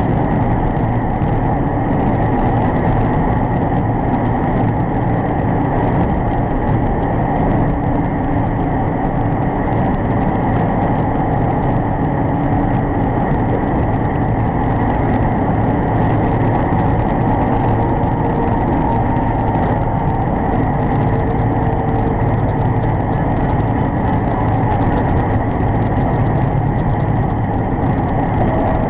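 Steady engine and road drone of a truck cruising at highway speed, about 55 mph, heard from inside the cab, with an even low hum and no sudden events.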